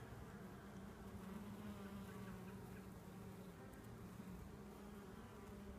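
Faint, steady buzzing of a cluster of honey bees on an open comb frame, a low even hum.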